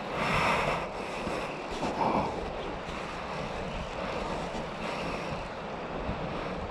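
Creek water running over a gravel and ice-edged bank, with wind buffeting the microphone. The noise swells briefly near the start and again about two seconds in.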